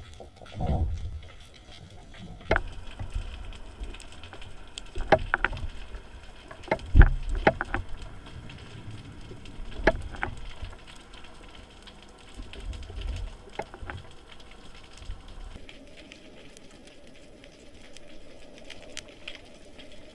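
Underwater sound picked up through a camera's housing: low rumbles of moving water come and go, with scattered sharp clicks and knocks, the loudest about a third of the way in.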